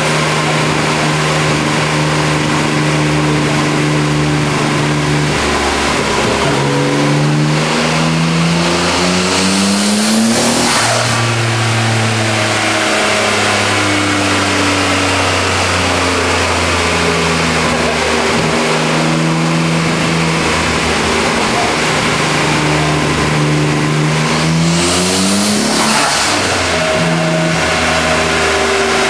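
Nissan RB26DETT twin-turbo straight-six running on a chassis dyno while misfiring badly. The revs climb for about four seconds, fall back, hold steady, then climb again for about seven seconds and fall back near the end.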